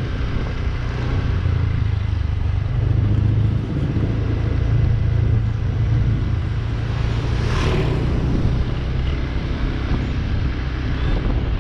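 Motorcycle engine running steadily at cruising speed, heard from the rider's seat under a steady rush of road and wind noise. A brief louder hiss about two-thirds of the way through.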